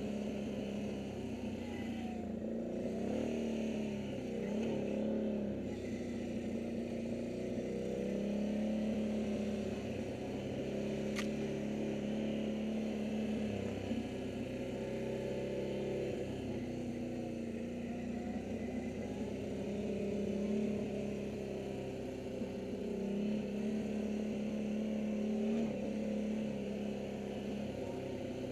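ATV engine running as the quad is ridden along a dirt trail, its pitch rising and falling again and again with the throttle.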